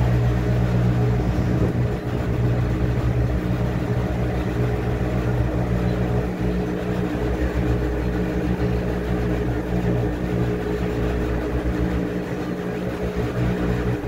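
Top-loading washing machine with a central agitator running, its motor humming steadily while the tub turns the wet load of clothes.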